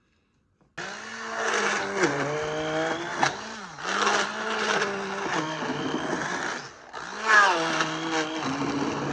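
Electric blender motor running on apples, its whine dropping in pitch as it bogs down under the load and picking back up, several times over. It starts abruptly about a second in.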